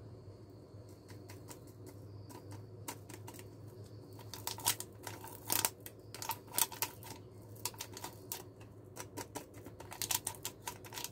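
Small powder sachet crinkling and crackling in the fingers as it is torn open and squeezed to empty the powder into a cup. The quick crackles come mostly from about four seconds in.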